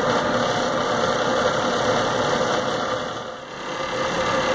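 Fulton boiler's power burner firing: the combustion air blower and flame run with a steady, even hum. It dips briefly about three and a half seconds in.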